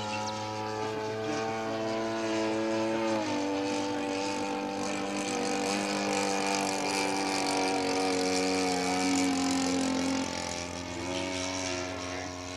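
Engine and propeller of a radio-controlled scale warbird model flying overhead: a steady drone whose pitch drops about three seconds in and shifts again near the end.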